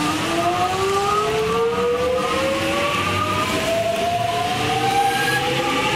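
Metro Trains Melbourne X'trapolis 100 electric train accelerating past, its traction motor whine made of several tones rising steadily in pitch together.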